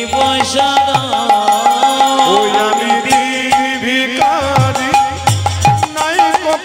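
Bengali kirtan music: a hand drum plays with low bass strokes that slide down in pitch, under a gliding melody and a short high note repeated at an even pulse.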